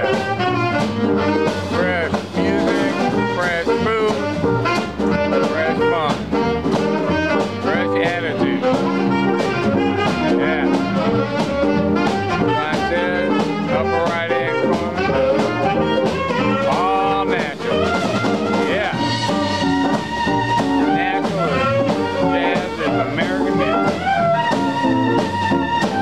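Live band playing an upbeat number: a saxophone carries the melody over electric guitar and a drum kit keeping a steady beat.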